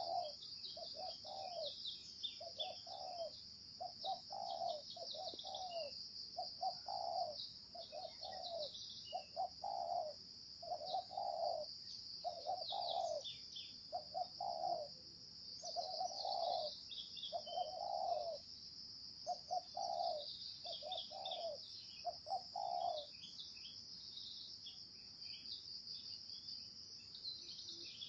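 Spotted dove cooing in a long run of short, low, repeated coos, which stop about 23 seconds in. A steady high-pitched buzz and the chirping of small birds run underneath.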